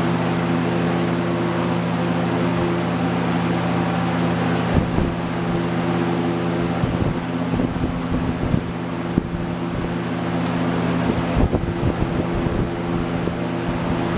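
Early-to-mid 1960s General Electric 20-inch box fan, model F11W22, running on high speed: a steady rush of air over the motor's steady low buzz. From about five seconds in, gusts of its airflow buffet the microphone.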